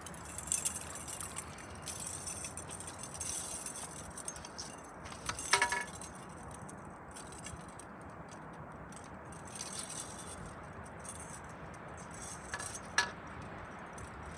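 Fishing gear clinking and rattling against rock as a landed trout is handled in a landing net. There are scattered small clicks throughout, a louder short metallic clink with a brief ring about five and a half seconds in, and another sharp clink near the end.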